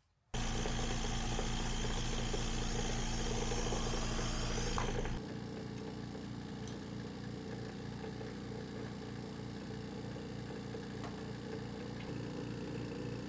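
Steady machine hum that starts abruptly, then drops to a quieter steady hum about five seconds in.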